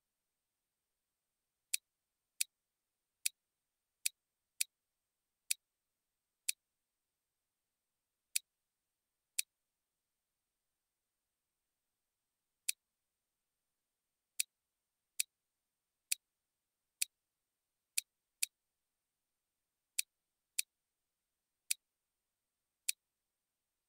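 About twenty short, sharp clicks at uneven intervals, some in quick pairs, with silence between: computer mouse clicks as the program is worked.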